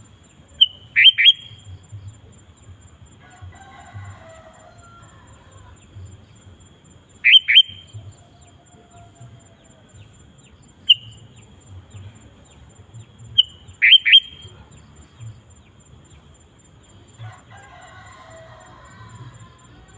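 Sooty-headed bulbul (kutilang) calling: loud, short, sharp calls about a second in, about seven seconds in and twice more around eleven to fourteen seconds, with softer warbled phrases between. A faint steady high tone runs beneath.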